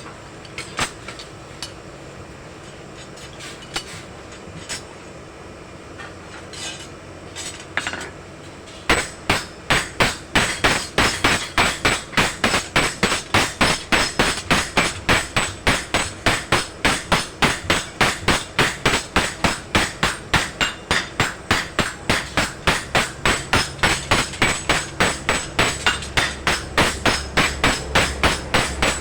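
Blacksmith's hammer striking metal on an anvil while forging a dagger blade: a few scattered knocks, then from about nine seconds in a steady run of blows at about three a second.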